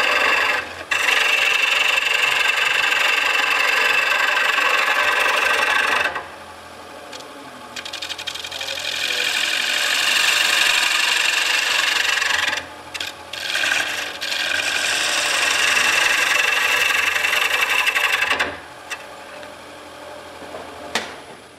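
Bowl gouge cutting into the inside of a spinning wooden bowl on a wood lathe, peeling off long ribbon shavings: a loud steady hissing shear. The cut comes in three passes, easing off about six seconds in, again around twelve seconds, and for the last few seconds.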